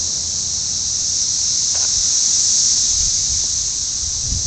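Dense chorus of periodical cicadas singing: a loud, steady, high-pitched drone from countless insects at once. Some low rumbling comes in near the end.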